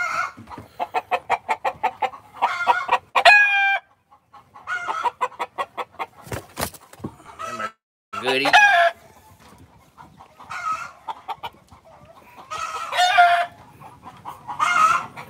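Chickens clucking and calling, with a rooster crowing: a quick run of short, sharp clucks in the first two seconds, then several separate drawn-out calls.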